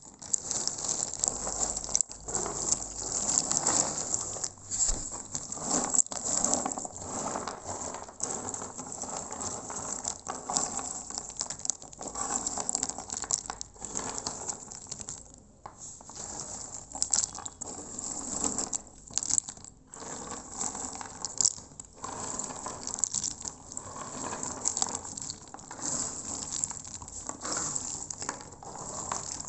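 Dried areca nuts clattering against each other in a heap: a dense, continuous rattle of many small hard clicks that starts suddenly and rises and falls unevenly.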